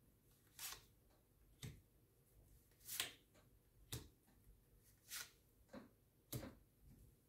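Faint, quick clicks and taps, about seven in all and irregularly spaced, as tarot cards are handled on a table.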